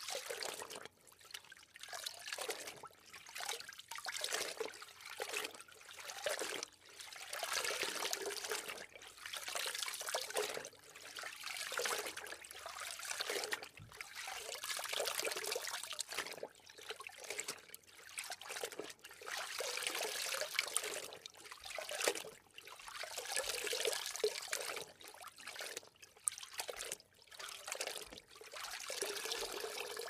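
Water trickling and sloshing in uneven swells of a second or two, with short breaks between.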